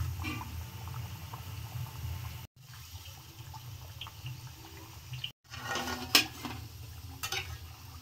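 Thekua deep-frying in hot oil in a steel kadhai: a soft sizzling and bubbling over a steady low hum. A metal ladle clinks against the pan a couple of times near the end.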